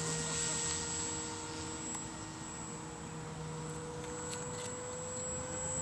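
RC model Cessna 120's motor and propeller droning steadily in flight, faint and distant, its pitch rising slightly near the end.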